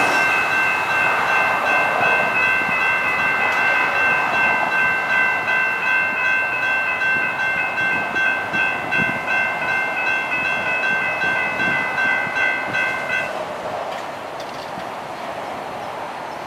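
Railroad crossing warning bell ringing rapidly and steadily over the rumble of a passing light rail train. The bell stops about three-quarters of the way through, and the train's noise fades soon after.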